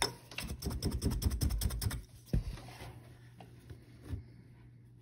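Hands working weft yarn and warp threads on a small tapestry frame loom: a quick run of light taps and rustles for about a second and a half, then a single sharper click, then only faint handling.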